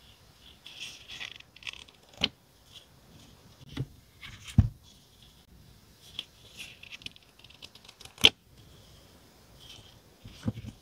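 Stickers and their paper and plastic packaging being handled: light rustling and scratching, with several sharp taps scattered through it. The loudest tap comes about eight seconds in.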